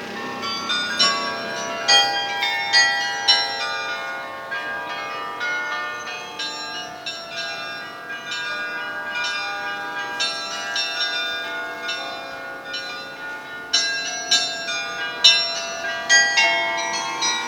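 The Zuiderkerk carillon playing a melody in concert: many tuned bells struck in quick succession, their tones ringing on and overlapping. The strikes are louder near the start and again over the last few seconds.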